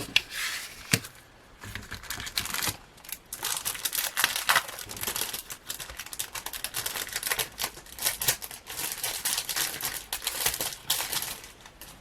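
Plastic packaging crinkling and rustling in bursts as it is handled and opened.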